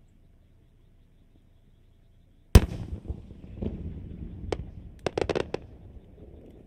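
Fireworks: one loud sharp bang about two and a half seconds in, followed by a low rumble and scattered crackles, then a quick run of about five sharp cracks shortly before the end.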